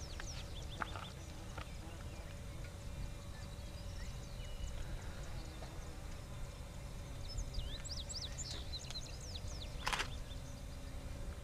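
Open-country ambience: a low steady rumble with small birds chirping now and then, a brief cluster of chirps about eight seconds in, and a single sharp click near the end.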